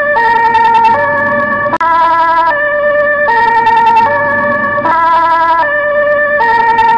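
Dutch ambulance two-tone siren sounding loudly, alternating steadily between a high and a low pitch, each held for a little under a second.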